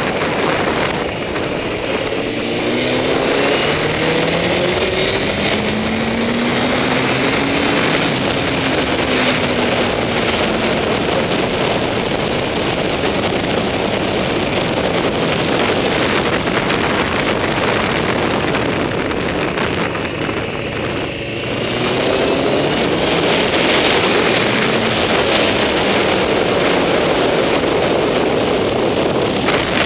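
Honda CBR954RR sportbike's inline-four engine under heavy wind rush on the microphone at track speed. The engine note rises as the bike accelerates about two seconds in, and again just after a brief dip in loudness around twenty-one seconds.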